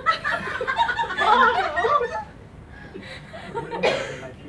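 Young people giggling and snickering, partly stifled behind hands, loudest in the first two seconds and then dying down, with a short noisy burst near the end.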